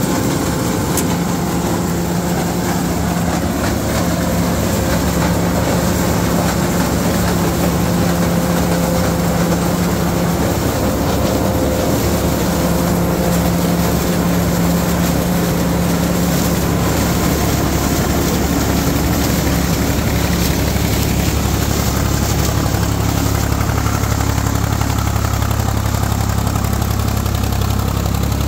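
Tractor diesel engine and a PTO-driven SIP Tornado 80 corn picker running steadily while harvesting maize: a continuous mechanical drone with a steady hum. From about two-thirds of the way in, a lower engine drone grows stronger as the IMT 549 DV tractor comes close.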